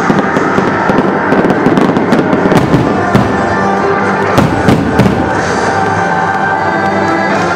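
Aerial fireworks shells bursting in quick succession, many sharp bangs and pops, loudest around the middle, over music.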